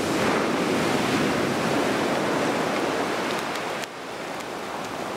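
Surf breaking and washing on a shingle beach: a loud, steady rush of waves that drops suddenly to a quieter wash a little before four seconds in.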